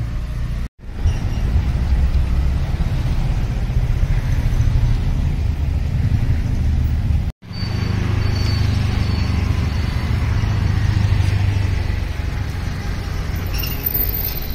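Urban street ambience at night: a steady low rumble of road traffic. It drops out for an instant twice where the shots are cut together.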